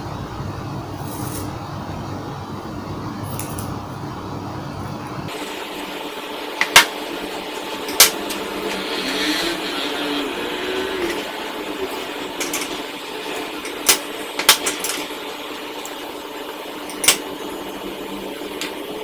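Sharp taps and clicks of a paper tape roll and a pencil being handled and set down on a plywood drawing board, about six in all, over a steady background noise.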